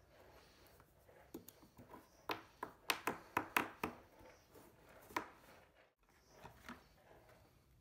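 Hollow plastic knocks and clicks from a PVC pipe being pushed into a hole in a plastic bucket and the bucket being handled: a quick run of about six taps in the middle, one more a second or so later.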